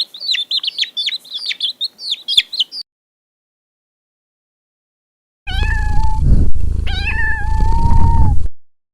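Rapid, high chirping of small birds for nearly three seconds. After a silent gap comes a cat meowing twice, in two long, drawn-out calls over a loud low rumble.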